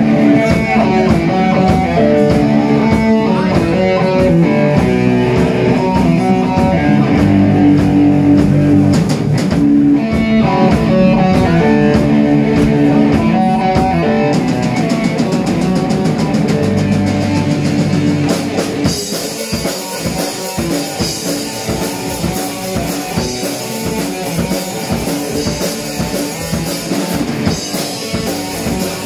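Live rock band playing amplified electric guitar, bass guitar and drum kit. About two-thirds of the way through, the guitar riffing gives way to a cymbal-heavy section of fast drumming.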